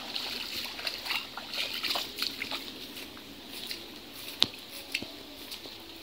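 Footsteps on wet, muddy, waterlogged ground: irregular soft slaps and splashes, with one sharp click about four and a half seconds in.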